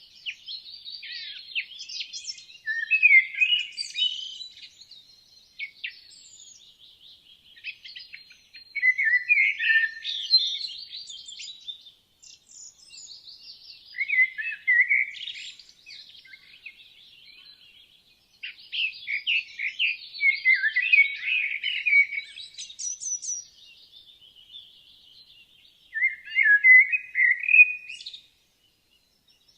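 Woodland songbirds singing: a louder bird repeats a short song phrase of two or three seconds about every five or six seconds, over quieter continuous chirping and twittering from other birds.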